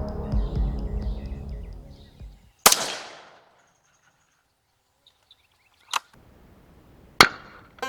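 Background music fades out, then a single sharp .17 HMR rifle shot about three seconds in, ringing briefly. Two more short sharp cracks follow later, the last about a second before the end.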